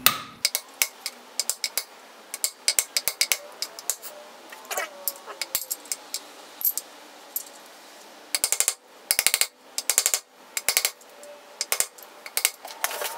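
Small hammer tapping on the old outer race of a Torrington needle bearing, driving the new bearing down into a cast-iron SM465 transmission case: many sharp metallic taps, some in quick runs.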